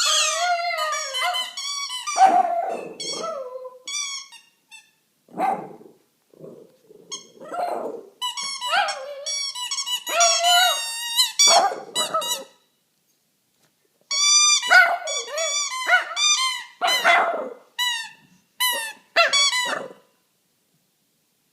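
Shih Tzu dog whining, yelping and squealing in quick high-pitched bursts, with a few barks. It pauses briefly about halfway through and goes silent near the end.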